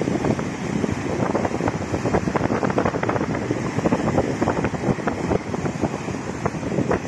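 Strong wind buffeting the microphone in irregular gusts, over the wash of choppy sea waves breaking against a concrete-slab and rubble shore.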